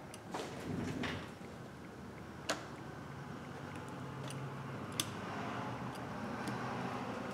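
Light handling noise and small sharp clicks from fingers and a tool working on an opened iPhone X's internals, with two clicks standing out about two and a half and five seconds in and fainter ticks after.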